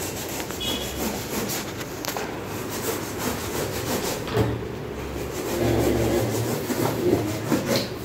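Cardboard scraping and rubbing, with scattered sharp scrapes, as a large refrigerator carton is cut and pulled open by hand.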